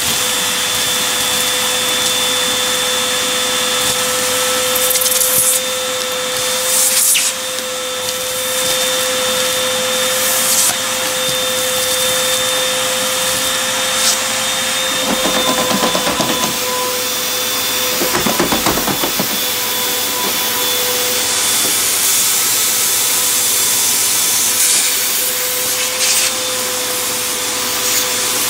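Vacuum cleaner running with a steady whine, its crevice tool sucking grit and debris off a wooden floor. The debris crackles and rattles up the nozzle, strongest in two short spells a little past the middle.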